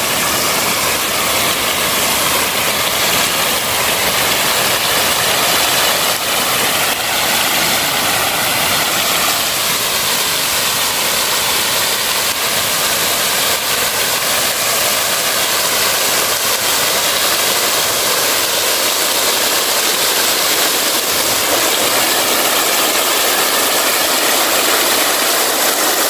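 Water raining down from perforated overhead fountain cylinders and splashing into a shallow pool: a steady, loud rushing hiss.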